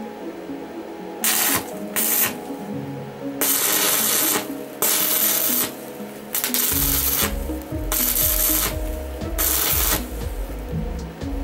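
Stick-welding arc crackling in seven short bursts, each under a second to about a second and a half long, as a roller chain is tack-welded to a steel square tube. Background music plays underneath.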